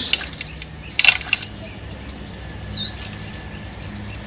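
Steady, high-pitched buzzing of an insect chorus in riverbank vegetation, with a single sharp click about a second in.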